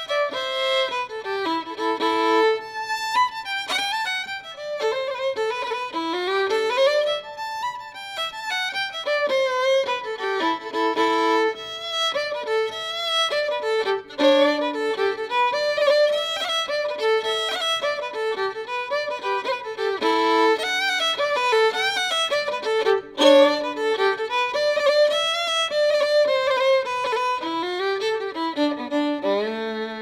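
Background music: a fiddle playing a quick, lively tune, ending on a long held low note near the end.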